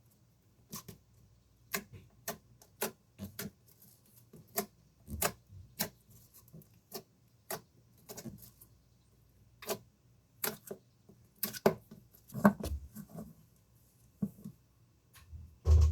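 Slime being squeezed and worked by hand, giving a series of sharp clicking pops at irregular intervals, about one or two a second, with a few heavier, duller ones later on.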